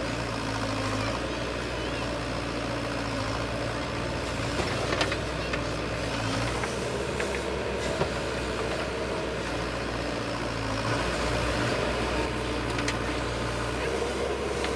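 Diesel engines of heavy earthmoving machines running steadily at a low, even pitch, with a few sharp knocks about five and eight seconds in.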